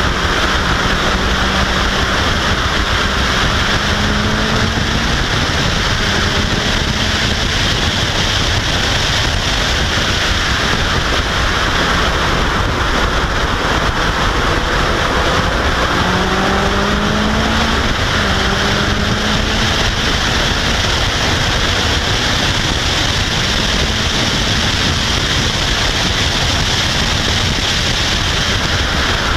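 Steady wind roar over the microphone of an open-cockpit Caterham R400 at track speed. The car's engine is faint beneath it, rising in pitch as the car accelerates.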